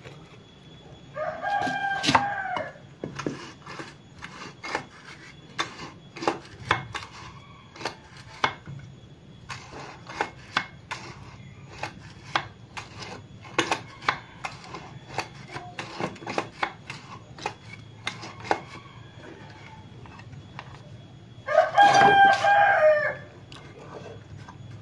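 A rooster crows twice, once about a second in and again near the end. In between come scattered light metallic clicks and taps from small parts of a scooter's kick-start gear and spring being handled.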